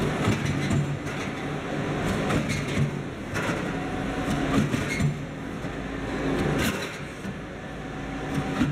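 Roll forming machine running as a steel sheet feeds through its rollers into a step roof-tile profile: a steady mechanical rumble and hum with a few clanks.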